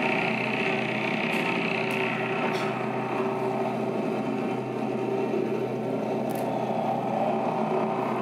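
A steady droning hum with a low tone under it and a few faint ticks, several in the first three seconds and one more after about six seconds.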